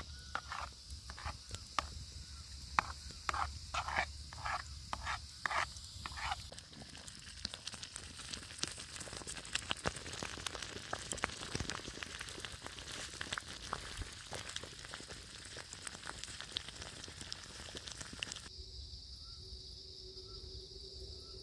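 Campfire crackling under a pot of cooking polenta, with a steady chorus of night insects throughout. For the first few seconds there is a regular run of short strokes, about two a second. Near the end the crackling stops suddenly, leaving only the insects chirping.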